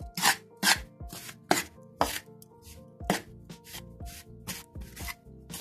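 A utensil scraping and stirring a dry mix of flour, sugar and margarine in a metal basin, in repeated gritty strokes about twice a second.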